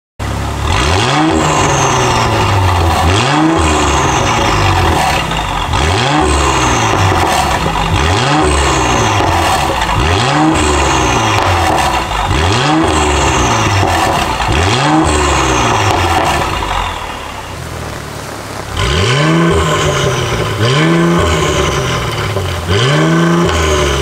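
Mercedes-AMG GLC43's twin-turbo V6 being free-revved through a Fi Exhaust valvetronic catback with catless downpipes, exhaust valves open. The revs are quick blips that rise and fall in pitch every couple of seconds, about ten in all, with a quieter pause between them about two-thirds of the way through.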